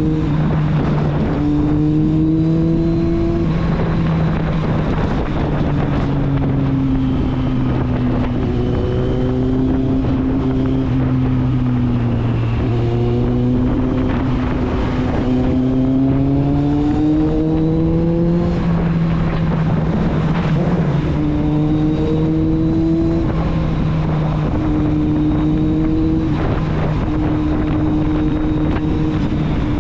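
Kawasaki Z750 inline-four engine and exhaust riding along at a steady loud level, pitch climbing gently and dropping a few times at gear changes, notably about four seconds in and near nineteen seconds, with wind noise over the microphone.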